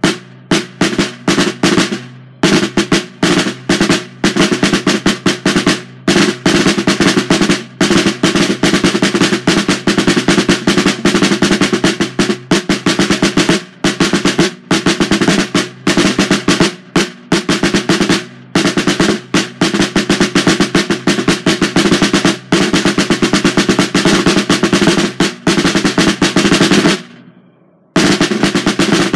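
A drum struck with wooden drumsticks in fast strokes and rolls, with a short pause near the end before the playing starts again.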